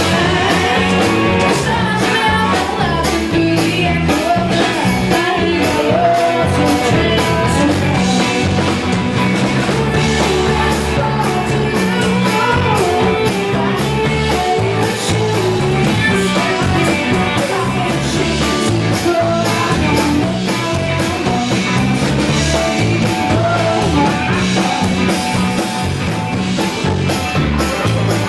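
Live rock band playing with electric and acoustic guitars, bass and a drum kit keeping a steady beat, with a woman singing lead.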